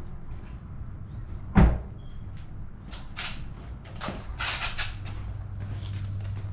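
A single heavy thump about one and a half seconds in, followed by scattered light clicks and scrapes of hard plastic truck-grille parts and tools being handled.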